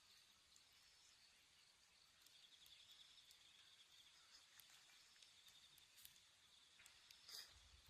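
Faint insects trilling in a steady, finely pulsed chorus, with a few small clicks and one slightly louder click near the end.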